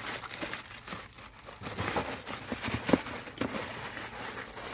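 Clear plastic wrapping crinkling and a cardboard box rustling as doll parts are pulled out, with a sharp tap about three seconds in.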